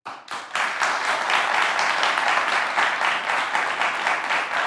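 Studio audience applauding: many hands clapping, swelling within the first half second and then holding steady.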